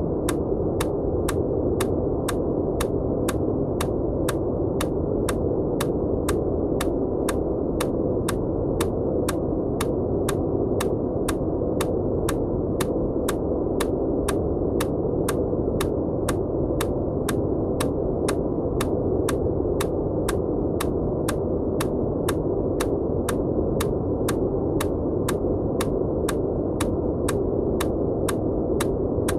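Steady, low-pitched white noise with evenly spaced short clicks about twice a second: EMDR bilateral stimulation ticks laid over the noise.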